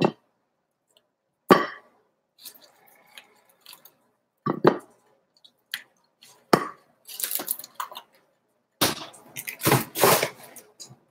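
Raw lamb chops set down one at a time on a ceramic plate, each landing with a short knock, with the clear plastic meat tray crackling as the chops are pulled from it.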